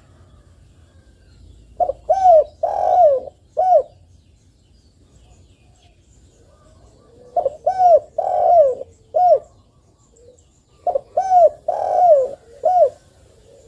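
Spotted dove (tekukur) cooing: three song phrases a few seconds apart, each two short coos, a longer drawn-out coo, then a final short coo.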